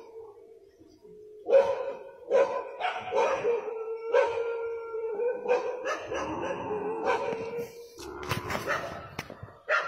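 Dogs barking repeatedly in an uneven string of barks, with howling underneath.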